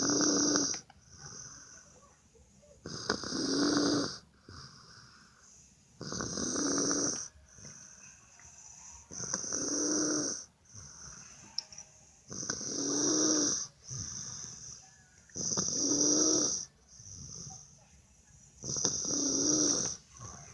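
A person snoring in a steady rhythm, a loud snore about every three seconds with quieter breathing in between.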